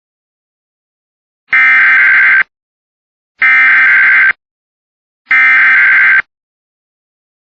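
Emergency Alert System SAME digital data bursts: three identical buzzy tone bursts, each about a second long, spaced about two seconds apart.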